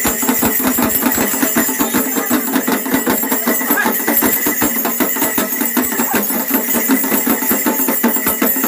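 Continuous fast clattering percussion, several beats a second without a break, accompanying a ritual performance.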